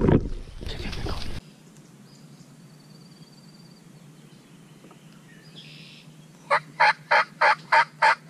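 A loud rumbling rush of noise on the microphone for about a second and a half at the start. Near the end come seven evenly spaced turkey yelps, about three a second.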